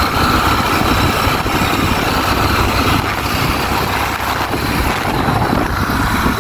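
Motorcycle engine running while riding, under a steady, dense rush of wind and road noise.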